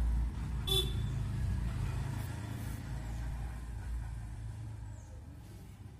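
Low rumble of a motor vehicle going past, fading steadily away, with one brief high sound under a second in.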